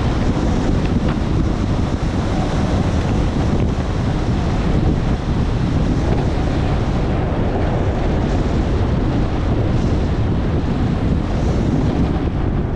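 Steady wind buffeting the action camera's microphone on a fast descent of a groomed ski run, a loud low rumble mixed with the hiss of snow sliding underfoot.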